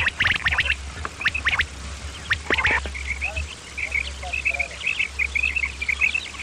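Common quail calling: harsh rasping notes at first, then from about halfway a quick run of short, high chirps, over a low steady hum.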